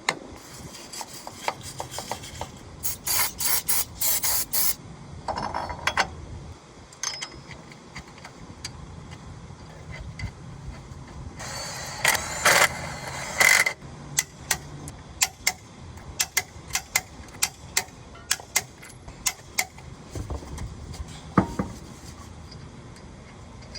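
Hand tools and metal car parts being worked: a string of sharp clicks and ticks, short runs of rapid clicking, and a louder scraping rasp about twelve seconds in.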